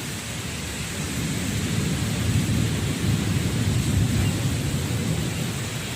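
Heavy rain pouring in a violent windstorm, with a low rumble that swells around the middle and eases toward the end.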